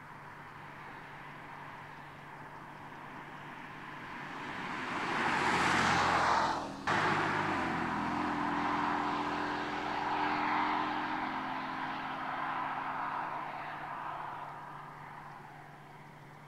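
BMW M4 Convertible's twin-turbo straight-six engine and tyres on the road as the car drives past, growing to its loudest about six seconds in. After a sudden brief dip, the engine note carries on with small rises and falls as the car pulls away, fading near the end.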